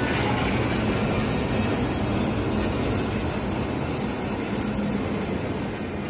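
Wood-Mizer LT15 band sawmill, driven by a 10 hp three-phase electric motor, cutting steadily through a big log: an even, continuous whir of the motor and band blade in the wood.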